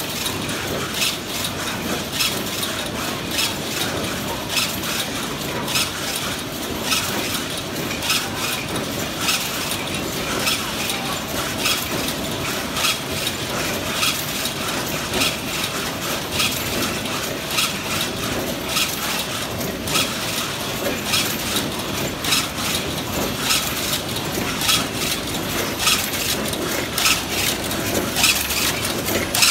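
Stainless steel wire mesh weaving loom running, with repeated sharp clacks of its weaving stroke over a steady mechanical clatter.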